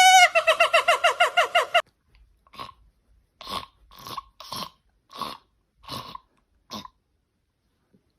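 A high-pitched call pulsing rapidly for under two seconds, then a pet crunching food in seven bites about half a second apart.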